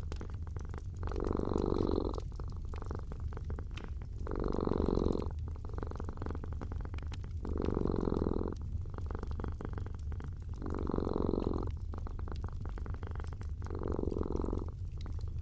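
Sleeping cat snoring in slow, even breaths, five in all, each about a second long and about three seconds apart. Between them a wood fire crackles in many fine pops over a steady low rumble.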